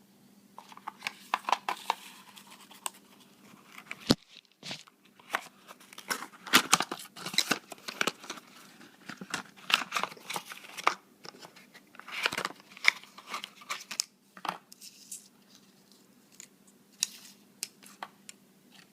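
Plastic packaging being crinkled and torn open by hand, in irregular crackling bursts with sharp clicks.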